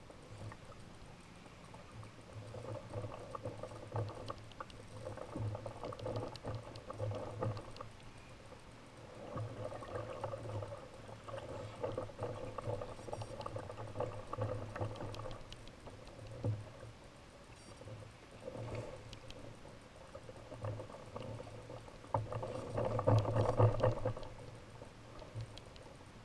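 Water sloshing against a kayak hull, with repeated bursts of a low mechanical hum from a Daiwa Lexa baitcasting reel being cranked against a hooked chinook salmon; the loudest burst comes near the end.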